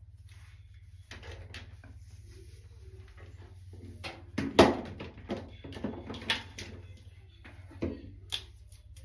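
A series of knocks, clicks and clatter of objects being handled and set down, the loudest knock about four and a half seconds in, over a steady low hum.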